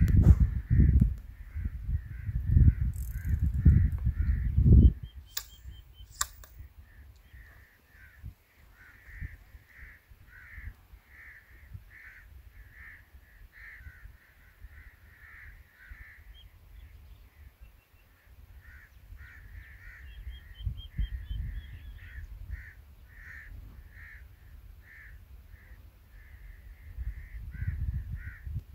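A bird calling over and over, about two short calls a second, with a pause for a few seconds past the middle. A low rumble is loudest in the first five seconds, and two sharp clicks come about six seconds in.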